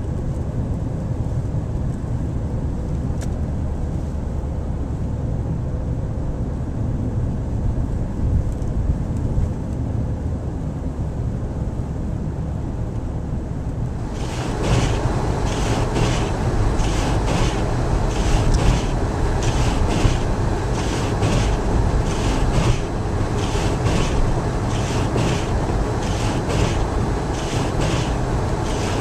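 Car driving along snowy roads, heard as a steady low rumble of engine and road noise. About halfway through, a louder, broader hiss with rapid irregular crackles joins in and carries on.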